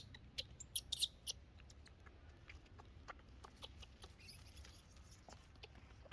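Scattered small clicks and taps, with a thin, very high, wavering squeak from a pet monkey a little past the middle, lasting about a second.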